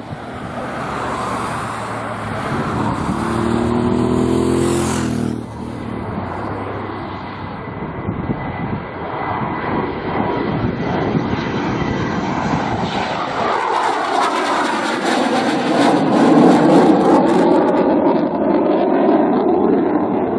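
Panavia Tornado's twin RB199 turbofan engines on a low approach with gear down: a steady jet noise that grows louder as the aircraft comes in. It peaks with a sweeping, phasing whoosh as the jet passes about 14 to 17 seconds in, then stays loud as it climbs away under power.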